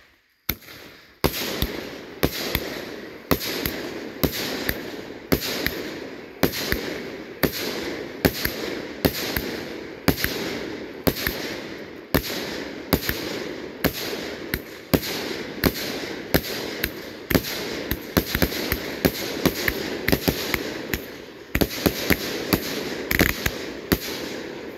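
A 36-shot consumer fireworks cake firing shot after shot: a sharp bang roughly every half second to second, with a continuous hiss between them. It starts about half a second in and keeps going to the end.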